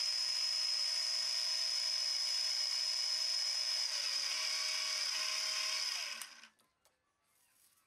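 Milling-machine spindle driving a drill bit into an aluminium cone: a steady high whine with the hiss of cutting, lower tones joining about four seconds in, then stopping suddenly about six and a half seconds in.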